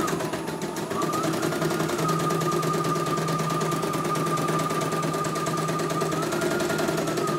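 CNY portable computerized embroidery machine stitching a design in its hoop: rapid, even needle strokes over a motor whine that dips and rises slightly in pitch a couple of times. The machine is on a test run after its power supply was replaced, and it is running very smoothly.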